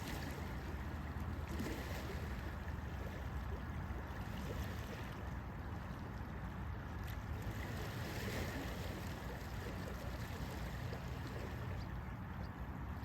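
Steady rumbling wind noise buffeting the microphone, with a fainter hiss above it.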